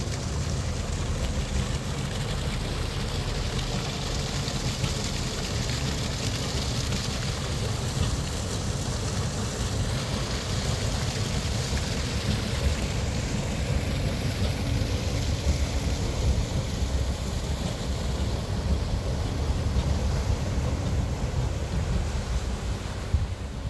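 Inland cargo ship's engine running with a steady low drone as the vessel moves slowly ahead, over a steady rush of water splashing from an outlet in the hull and churning behind the ship.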